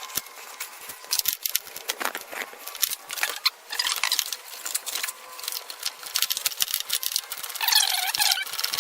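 Irregular small clicks, taps and rattles of hand work on the headlight ballast, its screws and connectors. Near the end, a run of high squeaks joins in.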